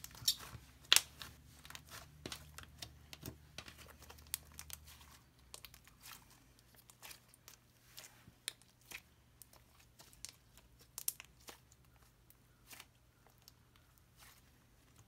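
Thick slime being poked, pressed and stretched by hand, giving a scattered run of small sharp clicks and crackles.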